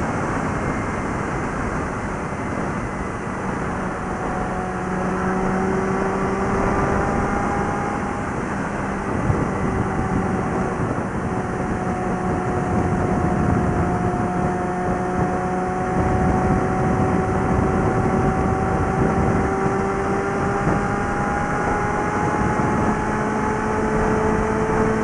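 Suzuki GSX650F's inline-four engine and exhaust at steady highway cruise, its pitch dipping slightly early on and then rising slowly through the second half, under a constant rush of wind noise.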